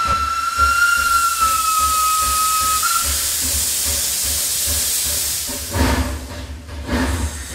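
Steam locomotive whistle blowing one long steady note that sags slightly in pitch and cuts off about three seconds in, followed by a loud hiss of steam and then slow chuffs and rumble as the engine gets under way.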